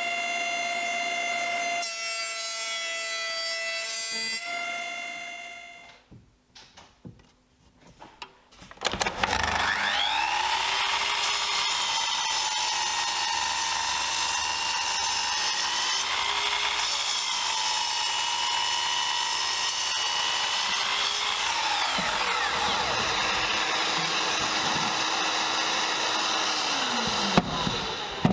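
Thickness planer running steadily, then winding down after about five seconds. About nine seconds in, a sliding miter saw's motor spins up with a rising whine and cuts through a wooden board, its pitch dipping under load. It runs on at a lower pitch before stopping near the end.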